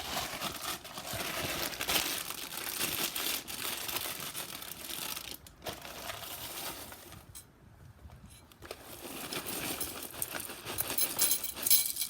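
Plastic cereal-bag liner crinkling as it is handled, in several long stretches with short pauses. Near the end comes a dense patter of small clicks.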